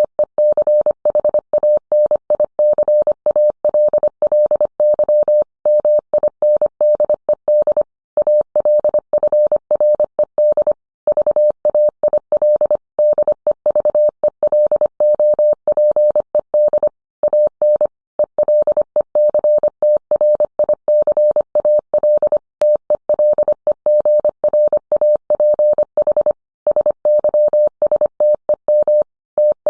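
Morse code sent as a single steady beep tone, keyed rapidly on and off in dits and dahs, with longer gaps between words.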